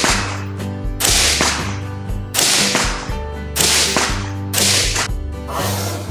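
Suppressed AR-15 rifle firing slow, deliberate single shots, about six sharp cracks roughly a second apart, each trailing off in an echo, over background music with a steady bass line.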